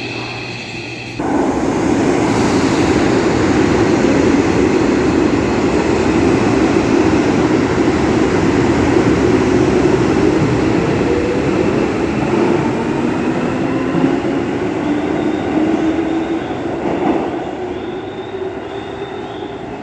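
A Keio Line electric train running past close by: a loud, steady rumble of wheels and motors that starts suddenly about a second in and fades away over the last few seconds.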